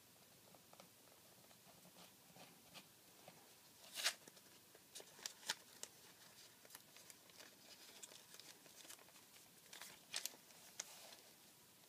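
Origami paper being folded and creased by hand: faint, scattered crinkles and crisp rustles, loudest about four seconds in and again in a short cluster near the end.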